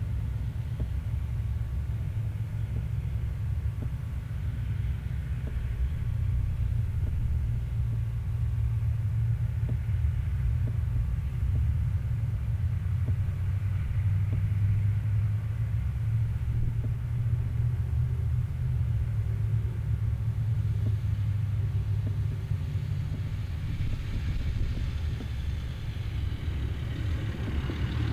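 Steady low rumble of a car on the move, engine and road noise heard from inside the car.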